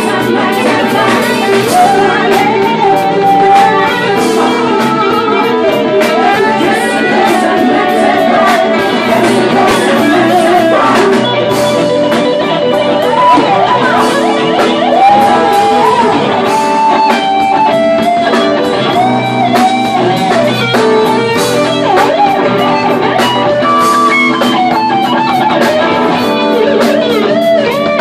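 Live bar band playing loud amplified music: electric guitar over a drum kit, with melody lines gliding on top.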